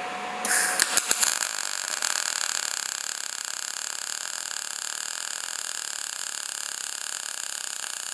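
MIG welding arc on 2 mm steel from a Jasic MIG 160 at its synergic (auto) recommended setting. The arc strikes about half a second in with a few sharp cracks, then settles into a steady, even frying crackle. The speaker finds this setting lays a slightly concave bead, and he ties the arc's pitch to the voltage.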